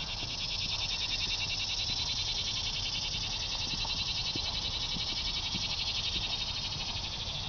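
Insects in the trees making a steady chorus of fast, even pulses, high-pitched.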